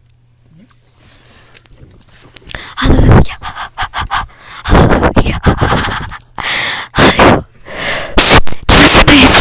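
Breath puffed and blown straight into a webcam microphone from a mouth held against it, in a string of loud, distorted bursts. It begins about two and a half seconds in and overloads the microphone.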